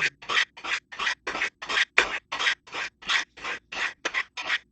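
Knife blade drawn quickly down the fine white ceramic rods of a triangular sharpener, about five short scraping strokes a second, evenly paced. This is the final honing stage, refining the edge on the finest stones of the set.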